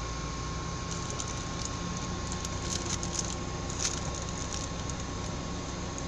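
Steady low hum inside a parked car, with scattered light ticks and clicks from about a second in.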